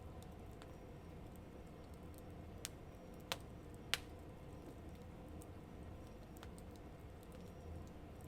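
Wood campfire crackling: sparse small clicks over a low steady background, with two sharper pops about three and four seconds in.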